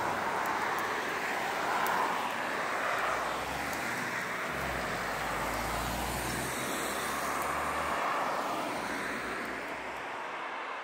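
Road traffic: cars passing by, with a steady hiss of tyres and engines that swells as vehicles go past, and a low rumble for a few seconds in the middle.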